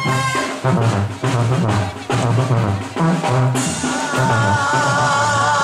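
Dance music: a drum break of bass drum and snare hits, then an accordion comes in with held, wavering notes about three and a half seconds in.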